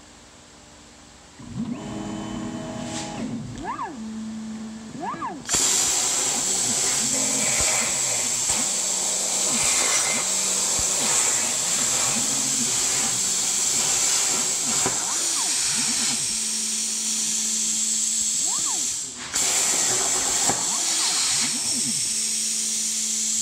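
CNC plasma cutting table at work on sheet steel: short rising-and-falling motor whines as the torch head moves into place, then the plasma arc fires about five seconds in with a loud, steady hiss as it cuts. The arc cuts out for a moment near the end and fires again, with more brief motor whines over the hiss.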